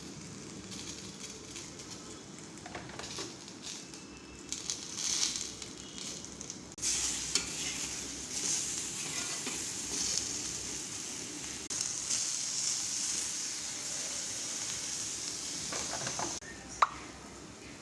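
Eggplant slices shallow-frying in hot oil, a steady sizzle that grows louder about seven seconds in, with occasional stirring and one sharp clink near the end.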